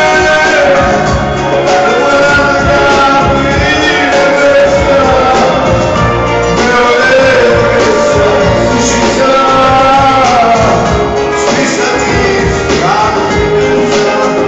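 Music: a song with a sung melody over instrumental backing and a steady beat.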